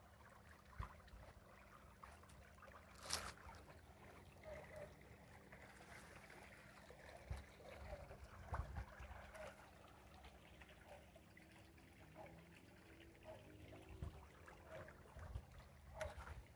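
Near silence: faint outdoor room tone with a few soft clicks, the loudest about three seconds in.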